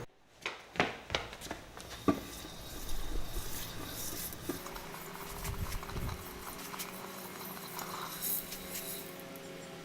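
A few sharp metallic clinks and knocks in the first two seconds, then quieter clattering over a faint steady hum: metal tools or a workpiece being handled.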